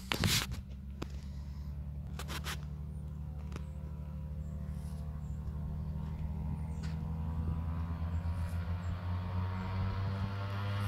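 Piper Seneca's twin piston engines and propellers droning steadily, growing louder and rising in pitch in the second half as the plane powers up for its take-off roll. A few knocks of camera handling come in the first moment.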